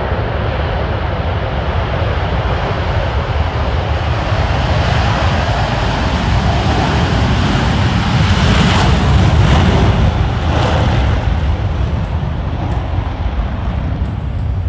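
Jet roar from the Blue Angels' diamond of four F/A-18 Super Hornets, building to a peak about nine seconds in and then easing slightly.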